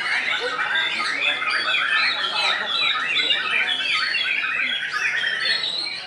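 White-rumped shama singing a fast, unbroken stream of short, varied notes.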